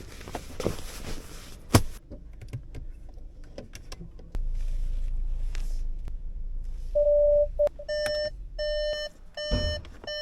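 A sharp click about two seconds in, then a low steady hum, then electronic beeping: one longer beep followed by a run of short beeps at the same pitch, about one every 0.7 seconds.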